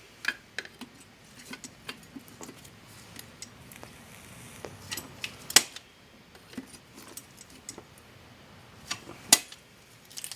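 Scattered light metallic clicks and clinks from a caulking gun being squeezed as a clamp to press brake caliper pistons back into their bores. Two sharper clicks stand out, about five and a half and nine seconds in.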